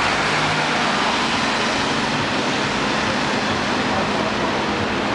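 Steady hiss of rain and tyres on a wet city road, with a light truck's engine passing during the first second.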